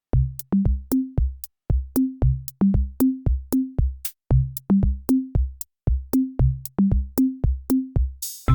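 Background electronic music: a drum-machine beat of punchy, pitched bass-drum hits at about three a second, starting just after the opening. Near the end a noise sweep leads into held synth chords.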